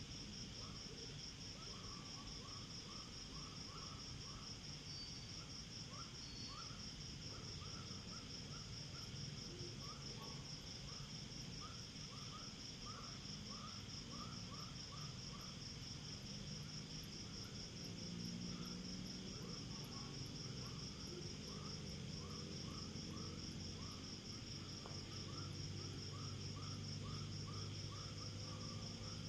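Night insect chorus: crickets give a continuous rapid high trill, over a lower-pitched chirping call repeated several times a second. A low steady hum comes up underneath about two-thirds of the way through.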